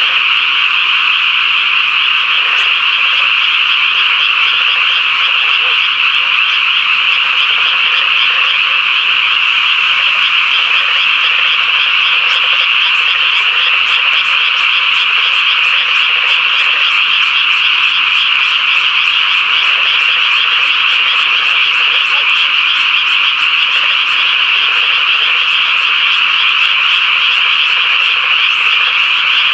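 A dense chorus of many frogs calling at once, a steady unbroken wall of rapid, high trilling calls with no pause.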